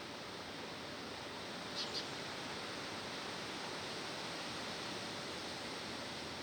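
Steady outdoor background hiss, with two short high-pitched bird chirps close together about two seconds in.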